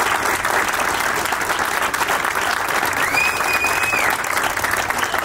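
Audience applauding, a dense patter of many hands clapping. About three seconds in, a single high whistle rises, holds for about a second, and falls away.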